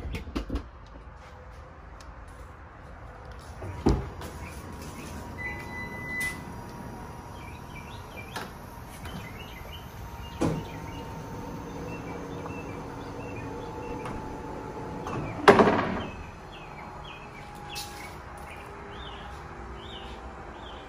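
Power sliding door and VMI Northstar in-floor wheelchair ramp of a 2014 Toyota Sienna operating: a short beep, a motor humming steadily for several seconds, and several clunks, the loudest about fifteen seconds in. Birds chirp faintly in the background.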